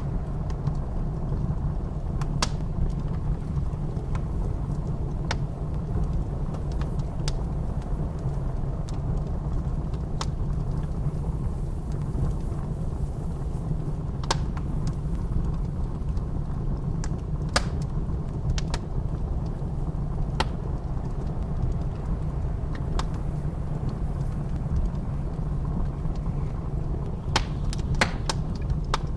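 Wood fire crackling, with scattered sharp pops and a quick cluster of them near the end, over a steady low rumble of blizzard wind.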